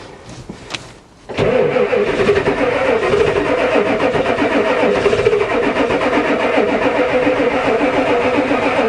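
Starter motor cranking a cold Ford diesel truck engine, starting about a second in and going steadily for about eight seconds. The engine does not start.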